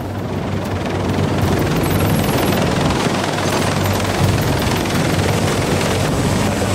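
Heavy-lift helicopter running on the ground with its rotors turning, growing louder over the first second or two, then holding steady.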